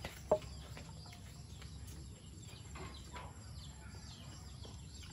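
Faint outdoor ambience with scattered small bird chirps and a low steady background hum, and a single short knock shortly after the start.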